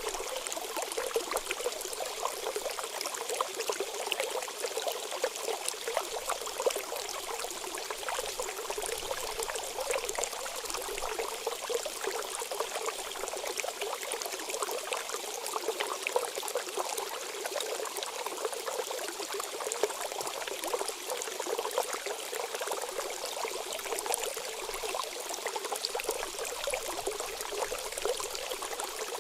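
Water pouring and trickling steadily, with a fine crackle running through it.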